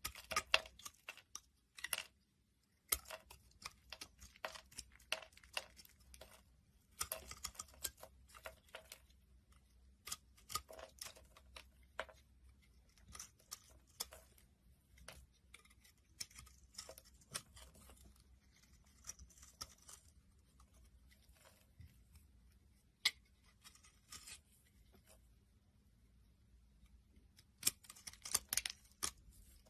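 A blade cutting into a bar of soap: clusters of short, crisp cracking and scraping strokes with brief pauses between them, busiest near the start and again near the end.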